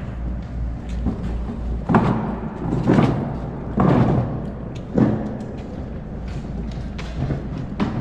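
Loaded hand truck being pushed across a concrete floor, with its gear rattling and a rumble from the wheels. Several heavy thumps come about a second apart.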